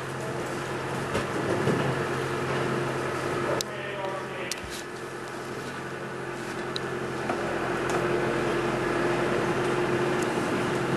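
A steady mechanical hum under a noisy haze. It breaks off abruptly about three and a half seconds in, then carries on a little quieter and grows louder toward the end.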